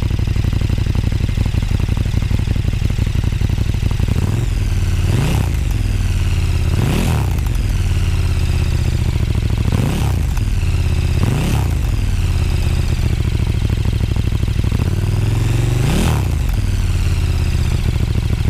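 KTM 1290 Super Duke R's 1,301 cc 75° V-twin idling, with about five quick throttle blips, each one sweeping the pitch sharply up and straight back down to idle.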